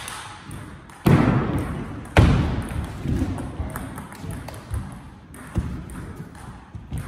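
Table tennis in a large hall: light clicks of the celluloid ball on the table and bats, and two loud thuds about a second and two seconds in, each ringing on in the hall's echo.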